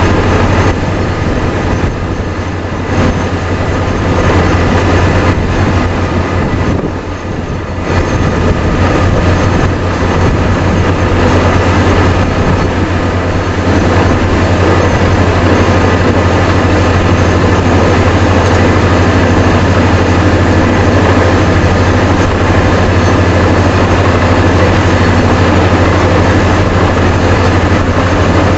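Truck-mounted borewell rig drilling on 400 psi compressed air from a Vesta VA650X2 diesel-driven portable screw compressor: a loud, steady heavy engine drone with a dense rush of air and drilling noise over it. It eases briefly about seven seconds in.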